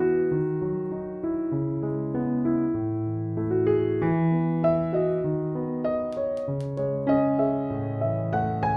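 Background music: a gentle piano tune playing a steady run of notes over a low bass line.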